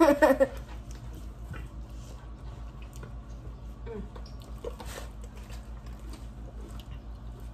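People eating fried chicken tenders: soft chewing with a few faint crunchy bites spread through, after a brief burst of voice at the very start.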